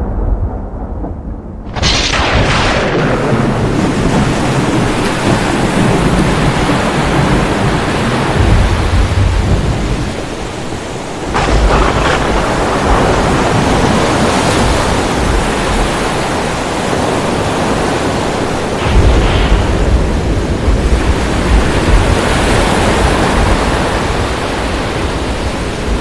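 Thunderstorm: heavy rain with thunder rumbling. A sudden crack comes about two seconds in and another about eleven seconds in, and deep rumbles swell in the second half.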